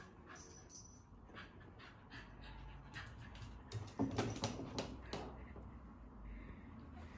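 A fox terrier panting as it jumps about, with a cluster of scuffs and clicks about four seconds in as it rears up and paws at a wooden pedestal.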